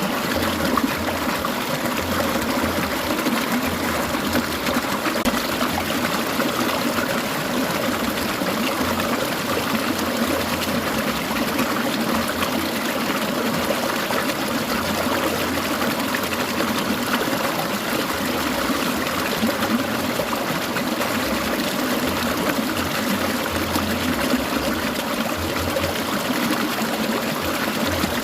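Clear mountain stream gurgling and trickling over rocks, a steady, unbroken water sound.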